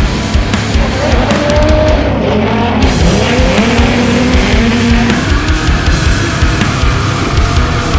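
Short-course off-road race truck engines revving, their pitch climbing and falling with throttle and gear changes, over loud background music.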